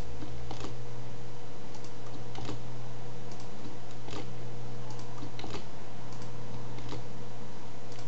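Scattered clicks of a computer keyboard, irregular and roughly one a second at most, over a steady low hum.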